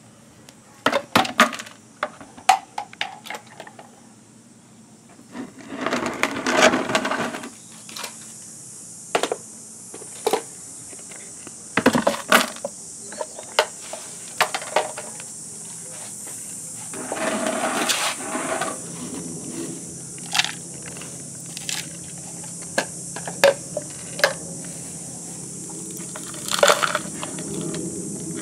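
Unger reacher-grabber tool's plastic jaws clicking as they grip small plastic toy garbage bins, with knocks and two longer rattling clatters as the bins are handled over a plastic wastebasket. Insects chirp steadily in the background from about a third of the way in.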